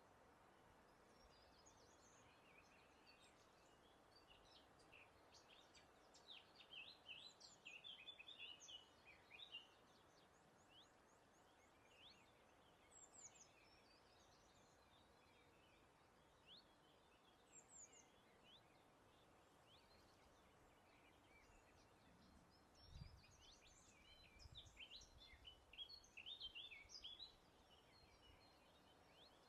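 Faint birdsong from several small birds, quick chirps and short trills that come in two busier spells, about six seconds in and again near the end, over a steady soft hiss of breeze. A brief low thump about two-thirds of the way through.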